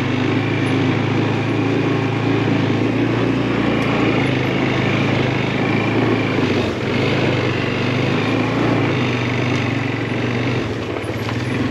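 ATV engine running steadily as it drives along a dirt trail.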